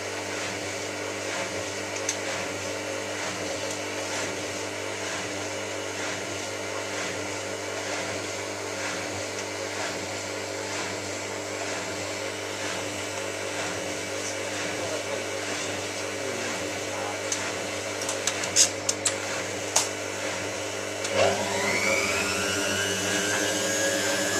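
Hotpoint 9534A washing machine running steadily with a motor hum and drum whir. A few sharp knocks come near the end, then the motor speeds up with a rising whine as the drum ramps up to spin.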